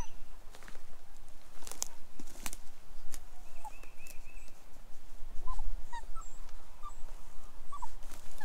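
Small birds chirping in short high calls, with scattered clicks and rustles and a steady low rumble of wind on the microphone.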